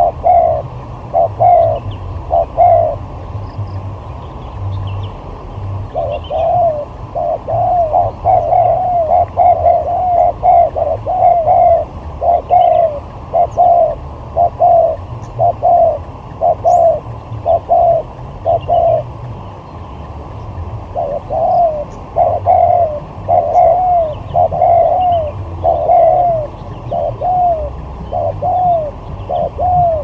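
Spotted doves cooing: loud arched coos repeated two to three a second in long bouts with short pauses, over a steady low rumble. Faint high chirps of small birds sound behind them.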